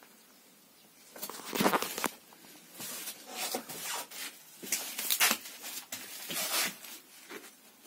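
A series of short scuffs and rustles in a small wooden room: footsteps on the plank floor and handling noise as someone moves about.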